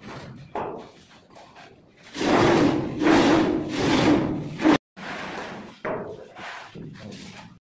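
A hand plastering tool scraping and rubbing over wet cement-sand plaster in long strokes, with about three loud strokes in the middle and softer ones around them.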